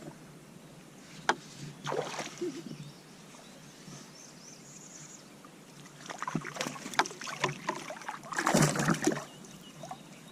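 Water splashing and sloshing around a kayak, with scattered knocks against the hull. A busier run of splashes builds near the end, as a hooked fish is brought in alongside.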